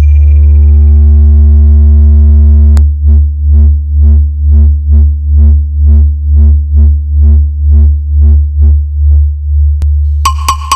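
Electronic music: a loud, sustained, deep synthesized bass tone with a few higher tones over it. From about three seconds in it pulses evenly, a little over twice a second. It is a bass-drop speaker-check passage, and near the end a new beat with sharp clicks comes in.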